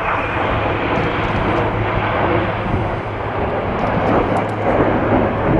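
Jet engine noise from the Red Arrows' BAE Hawk T1 jets flying in formation: a steady, even rushing sound with no sharp peaks, over a constant low hum.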